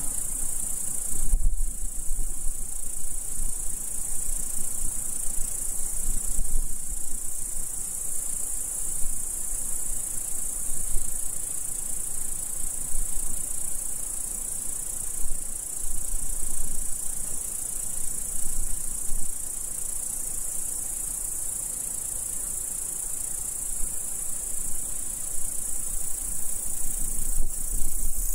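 Meadow insects chirring in a continuous high-pitched drone, with a low, unsteady rumble beneath it.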